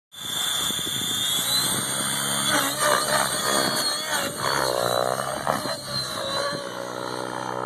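Radio-controlled model helicopter lifting off and flying fast past: a steady high motor whine over the low buzz of the rotor blades, the pitch bending up and down as it swoops close around the middle.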